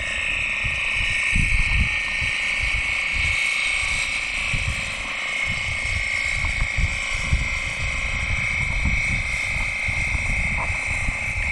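A steady, high-pitched chorus of calling animals runs throughout, over an uneven low buffeting rumble on the microphone.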